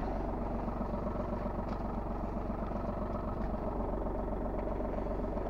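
Seat Cordoba's 1.4 TDI three-cylinder diesel (AMF engine) idling steadily, still warming up after a cold start in freezing-point weather.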